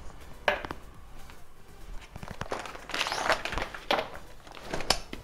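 Photography umbrella being handled and opened: several short rustles and crinkles of its fabric, with a longer rustle about three seconds in.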